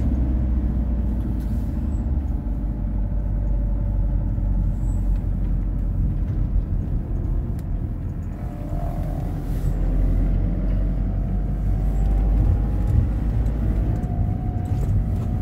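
A moving car heard from inside the cabin: a steady low rumble of tyres and engine. A faint whine joins about halfway through.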